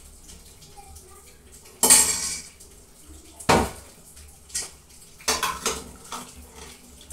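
Metal spoon and ladle clanking against a stainless steel cooking pot of soup. There are a few separate clanks: the loudest about two seconds in, another around three and a half seconds, then several lighter clinks close together between five and six seconds.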